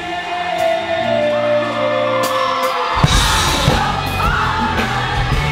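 Live concert recording of a song with a singing voice and crowd yelling and whooping. The beat drops out for the first few seconds over held notes, then comes back in hard about three seconds in.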